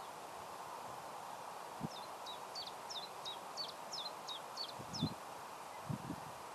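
A small bird calling: a quick run of about ten short, high chirps over roughly three seconds, against a steady outdoor background noise, with a few low thumps.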